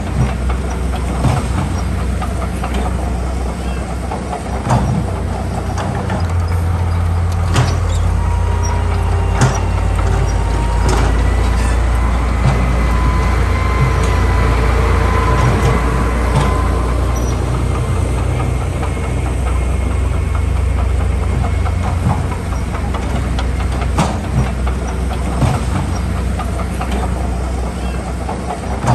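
Heavy diesel engine of earthmoving machinery running steadily with a deep drone, with scattered sharp metallic clanks. A faint thin whine comes in for several seconds in the middle.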